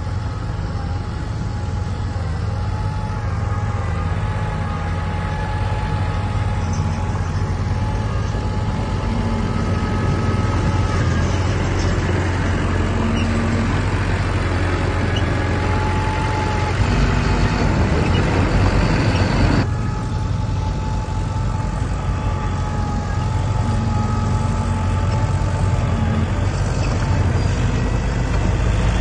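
Heavy construction machinery's diesel engine running under load, a deep rumble with a steady mechanical whine above it. The sound changes abruptly about two-thirds of the way through.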